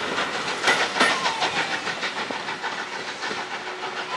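Wheels of a steam-hauled passenger train's carriages clicking over the rail joints, the clicks growing fainter as the last coach moves away. A faint steady tone comes in near the end.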